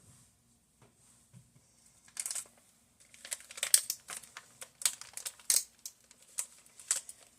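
Plastic packaging of turkey pepperoni crinkling as it is handled: irregular sharp crackles that start about two seconds in and grow busier.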